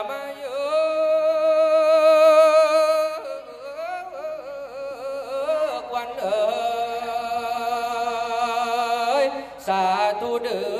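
A male voice chanting the Isan su khwan blessing in a drawn-out sung melody, holding long notes with a wavering vibrato: the call summoning the khwan (spirit) to return. One note is held for about the first three seconds, then the melody steps up and down through several held notes.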